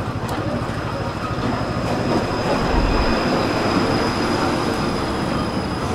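Tram running along the track: a steady rumble of wheels on rails, with a thin, high-pitched squeal above it.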